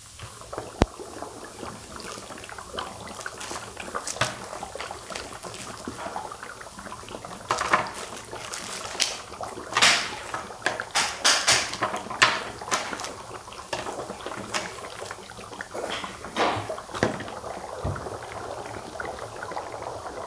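Dry ice bubbling and popping in water inside plastic cups: a steady fizzing hiss with many sharp gurgling pops, busiest from about eight to thirteen seconds in. A single sharp click comes just before the first second.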